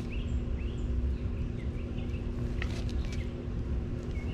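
Sulcata tortoise biting and chewing raw pumpkin, with a couple of short crunches a little past halfway. Birds chirp repeatedly in the background over a steady low hum.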